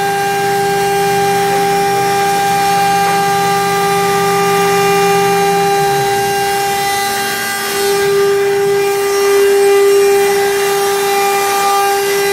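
Jieke 1325A CNC router spindle running with a steady high whine, with a lower hum under it that stops about six seconds in.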